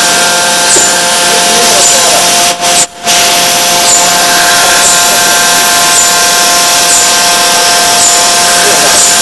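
Electro-resistance forging machine running: a loud, steady mechanical whine and hiss with several steady tones, and a faint high chirp repeating about once a second. The sound drops out briefly near three seconds in.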